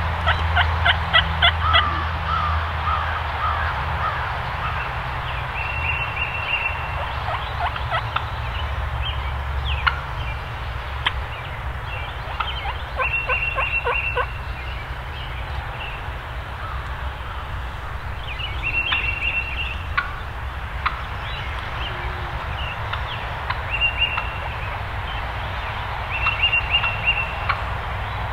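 Wild turkey tom gobbling: a rapid rattling call right at the start and again about halfway through, with shorter repeated calls in between.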